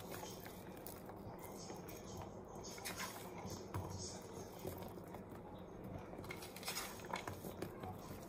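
Diced onion pieces pattering onto rolled-out dough as they are scattered by hand from a plate, with fingers scraping the plate: irregular soft clicks and taps.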